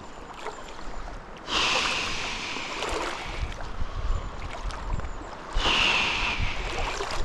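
River water sloshing and rushing around wading legs, in two bursts of about two seconds each over a steady stream rush.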